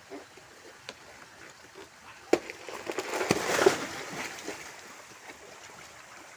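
A sharp knock, then a loud splash of water that dies away over about a second.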